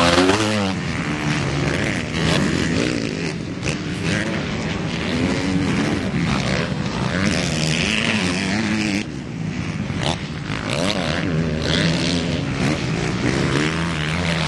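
Motocross bike engines revving as the bikes race the dirt track, several engines overlapping, their pitch rising and falling with the throttle.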